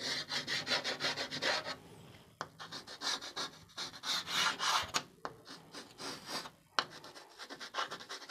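White chalk rubbing on a chalkboard in quick back-and-forth shading strokes. The strokes come in bursts with short pauses, and a few sharp clicks are heard along the way.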